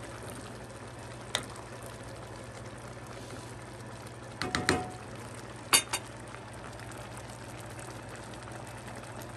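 Pan of mung-bean soup with cabbage and shrimp bubbling on the stove, with a wooden spoon stirring. The spoon knocks against the pan a few times: once early, a short cluster in the middle, and the loudest pair of knocks about six seconds in.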